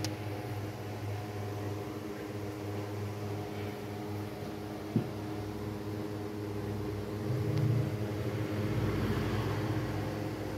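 A steady low mechanical hum, with a single sharp click about five seconds in. The hum grows louder and deeper for a few seconds near the end.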